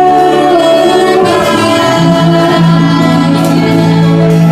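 Church choir singing a gospel song in long held notes.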